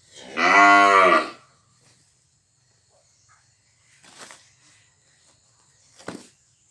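A cow moos once, a single low call of about a second whose pitch rises and then falls. A few faint, short sounds follow later.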